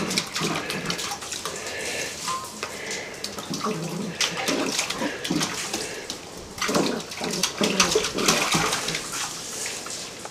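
A puppy pawing and splashing water in a stainless steel bowl: irregular bursts of splashing and sloshing, heaviest a little past the middle.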